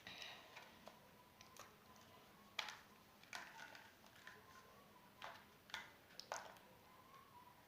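Faint scattered clicks and small plastic handling noises, a handful of sharper clicks after about two and a half seconds, as a new wireless mouse is fiddled with in a failed attempt to pry it open.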